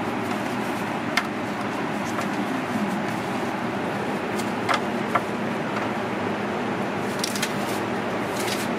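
Steady background rush with a faint low hum, broken by a sharp click about a second in, two more near the middle, and a few faint ticks near the end.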